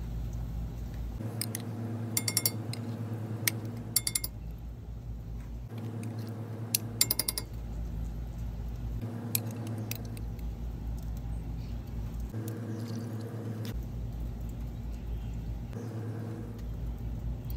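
Glass bowls and a utensil clinking against each other and a cast iron pot as sauce ingredients are scooped and poured in, with a few clusters of sharp clinks in the first half over a steady low hum.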